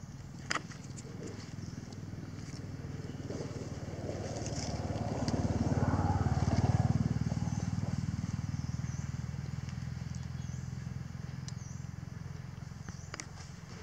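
A motor vehicle's engine passing by, swelling to its loudest about halfway through and then fading away.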